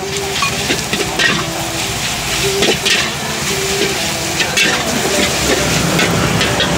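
Food sizzling in a hot wok, stirred and scraped with a metal ladle and spatula: a steady sizzle with irregular metal clinks and scrapes against the pan.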